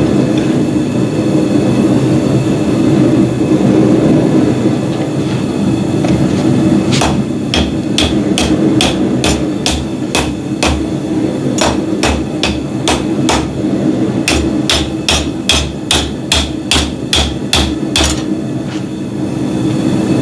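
Blacksmith's hammer striking hot steel on an anvil to straighten a bent scroll back flat: a quick run of ringing blows, about three a second, beginning about a third of the way in and stopping shortly before the end. A steady low roar runs underneath.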